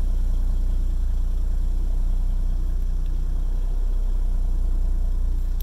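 Toyota Land Cruiser's 1HD-FTE turbo-diesel straight-six idling steadily in gear, heard from inside the cab, as the truck creeps slowly in reverse.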